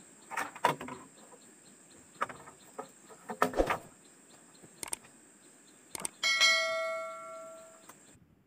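Knocks and rustles of dry branches being carried and laid down, then a click and a bell-like ding from a subscribe-button overlay, which rings for about two seconds before cutting off suddenly near the end.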